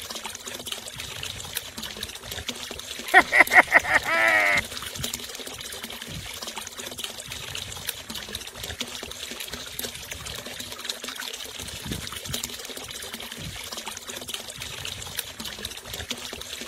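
Water trickling steadily from a toy water tanker's thin plastic tube into a puddle on sand. About three seconds in, a quick run of high chirping notes sounds for about a second and a half.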